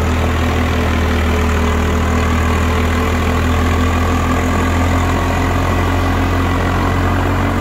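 Swaraj 744 FE tractor's three-cylinder 3136 cc diesel engine running steadily under load as it pulls a nine-tine cultivator through the soil.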